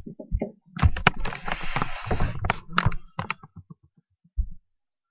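A quick run of small clicks and taps with a brief scraping rustle in the middle, from a GM steering-lock cylinder and its key being handled; a single low knock near the end.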